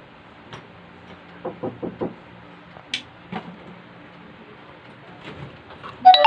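A few light knocks and clicks, four in quick succession and then a couple of single sharp clicks, over a steady low hum, with a loud, high-pitched sound starting just at the end.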